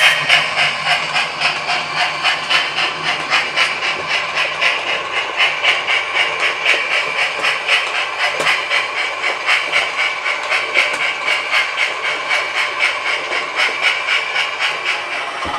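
Model steam locomotive's DCC sound decoder playing a steady exhaust beat, about three chuffs a second with hiss, through the loco's small onboard speaker as it hauls its train.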